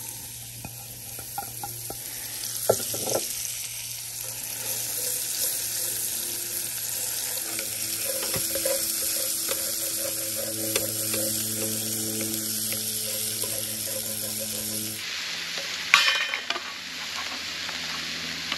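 Sliced mushrooms sizzling steadily in a stainless steel skillet, stirred with a wooden spatula that scrapes and taps against the pan. A sharp clack about sixteen seconds in is the loudest moment.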